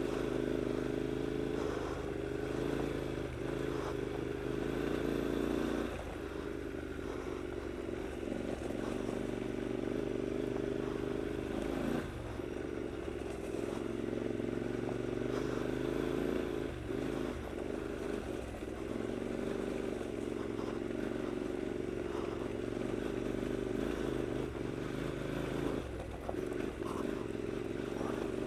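Triumph Scrambler's air-cooled 865 cc parallel-twin engine running at low revs on a rough climb. The note drops and picks up again several times as the throttle is closed and reopened, with some clatter from the bike over the rough surface.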